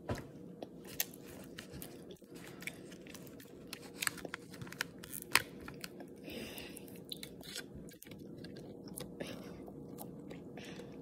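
A child chewing a mouthful of milk chocolate close to the microphone: scattered small clicks and wet mouth noises, with a couple of sharper clicks in the first second.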